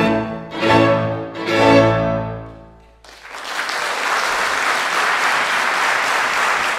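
Classical music on bowed strings plays its last chords, which fade away. About three seconds in, audience applause starts abruptly.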